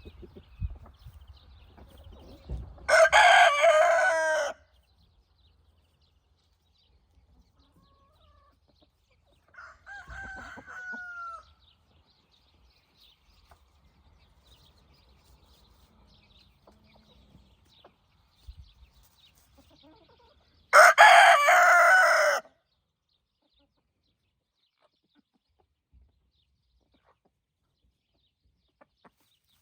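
Roosters crowing: two loud crows, each about a second and a half long and some eighteen seconds apart, with a fainter crow in between, and quiet scratching and clucking of the flock in the gaps.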